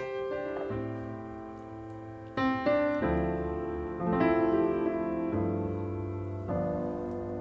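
Background piano music: sustained chords and notes that change every second or so.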